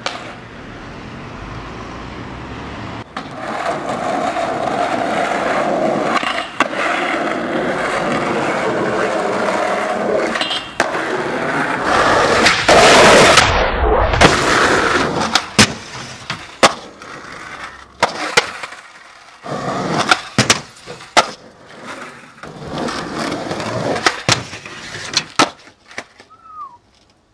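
Skateboard wheels rolling on pavement and concrete, loudest about halfway through. In the second half come several sharp snaps and clacks of the tail popping and the board landing and hitting the ground, between shorter rolls.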